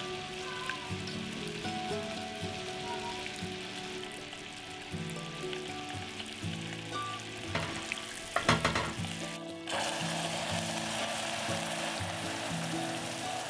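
Melted sugar bubbling into caramel in a saucepan, sizzling with a steady hiss. About eight seconds in come a few loud spattering cracks as hot water is added, and after that the caramel boils louder and rougher.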